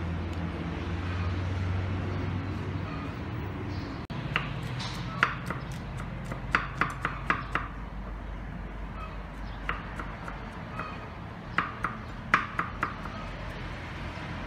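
Cleaver chopping garlic on a wooden chopping board: irregular sharp knocks, some in quick runs of three or four, starting about four seconds in. Before that, a steady low hum.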